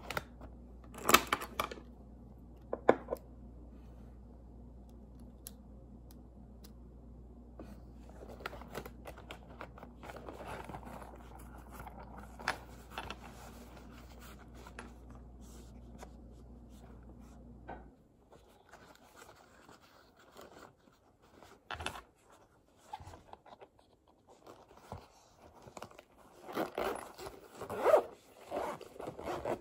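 Zippered fabric pencil cases being handled: zipper pulls and the rustle and rub of fabric. There are sharp zipper sounds about a second in and again near the end, with softer rustling in between.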